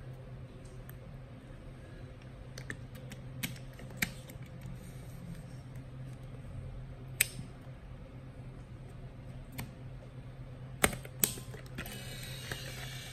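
Hasselblad XPAN II and a 35mm film cassette being handled while loading: scattered sharp plastic and metal clicks, the loudest a pair about 11 seconds in as the camera back is shut. Near the end, the camera's film-winding motor starts to whir. A low steady hum runs underneath throughout.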